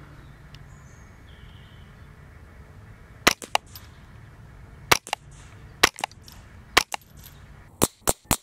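Smith & Wesson M&P 15-22 .22LR semi-automatic rifle firing. Four single shots come about a second apart, starting about three seconds in, then a rapid string of about four shots a second near the end.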